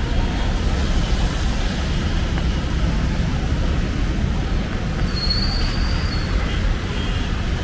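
Road traffic on a wet road: a steady low rumble of engines and tyre hiss, with a brief high-pitched squeal about five seconds in.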